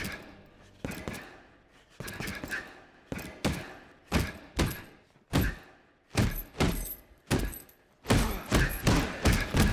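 Fists punching a hanging heavy bag: a run of dull, echoing thuds, spaced unevenly at first, then several a second in the last second and a half.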